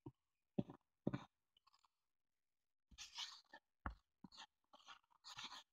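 A wad of crumpled tissue paper crinkling and scrubbing against a cutting mat in short scratchy bursts, with a light knock on the mat near the middle.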